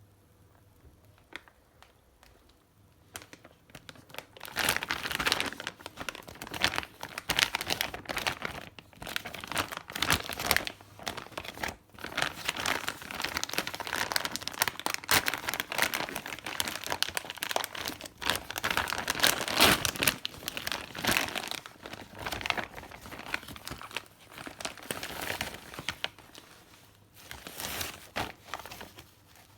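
Crinkling and tearing of a Pampers diaper pack's packaging as it is handled and opened by hand. It starts about four seconds in and goes on in uneven spells, easing off near the end.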